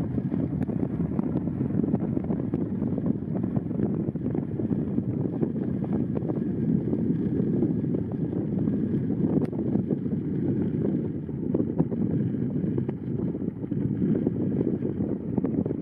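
Strong wind buffeting the microphone: a dense low rushing noise that swells and dips continually, drowning out any other sound.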